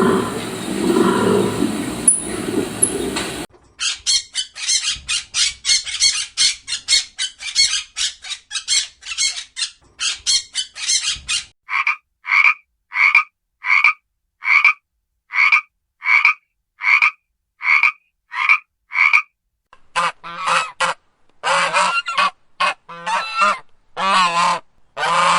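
A sequence of recorded animal calls. A low roar ends about three and a half seconds in, followed by a fast rattling run of short calls, then evenly spaced short calls about one and a half a second. Near the end come longer, harsh calls in groups.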